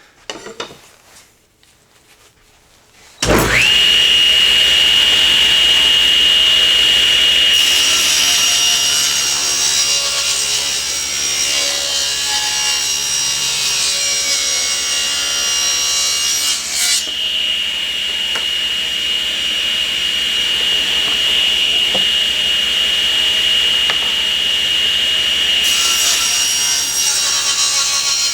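Table saw switched on about three seconds in, its blade running with a steady high whine. The blade rips lengthwise through a wooden board from about seven seconds in until about seventeen, then starts cutting again near the end.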